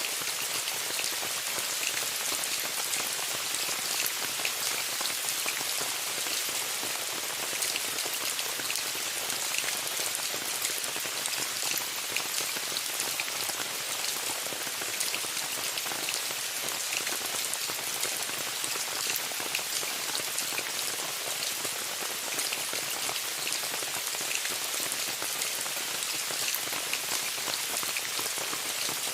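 Steady rain falling on a tent, a dense hiss of many drops with fine pattering ticks.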